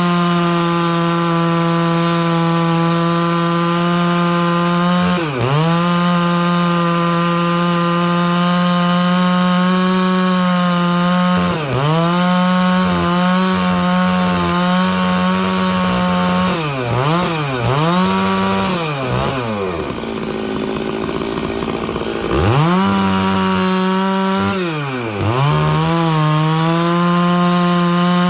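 Stihl 660 two-stroke chainsaw with a 36-inch bar rip-cutting lengthwise through dry larch, run at high revs under load. The engine pitch dips sharply and recovers several times as the chain bogs in the wood. It eases off for a few seconds about twenty seconds in, then revs back into the cut and drops off right at the end.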